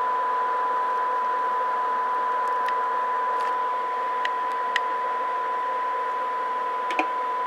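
Steady 1 kHz test tone in a bed of hiss: a CB radio receiver, likely the Stryker SR-955, demodulating a weak AM test signal at about −113 dBm, near its sensitivity limit during a SINAD check. A few faint clicks are heard late on.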